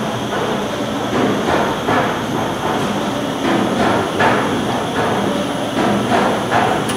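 Braun 800NMTDP-6 800-lb industrial washer running: a loud, steady mechanical noise with rhythmic knocks about twice a second.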